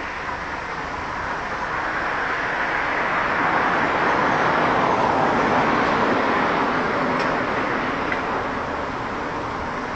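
Road traffic on a street: a car passing, its tyre and engine noise swelling to a peak about halfway through and then fading away.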